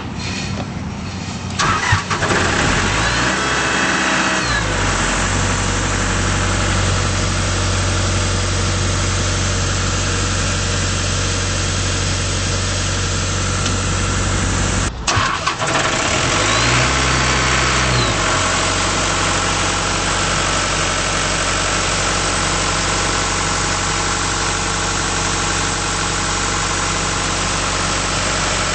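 John Deere 4039DF four-cylinder diesel engine of an Ingersoll Rand P185WJD towable air compressor cranking and catching, then running steadily. Its pitch rises and falls briefly a few seconds after it starts, and again just after a short break about midway.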